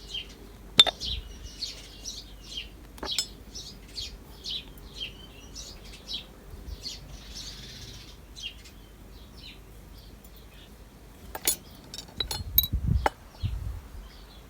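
Small birds chirping over and over, with sharp clinks, one about a second in, another around three seconds, and a quick cluster near the end, along with a low thump.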